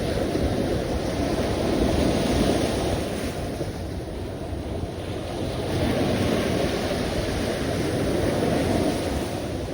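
Sea waves surging and washing in, a continuous rush that swells twice, about two seconds in and again from about six seconds in.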